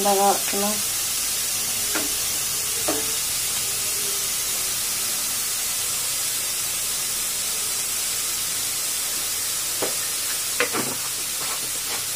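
Chopped vegetables frying in an aluminium kadai on a gas stove: a steady sizzling hiss. A few light knocks come about two and three seconds in and again near ten to eleven seconds.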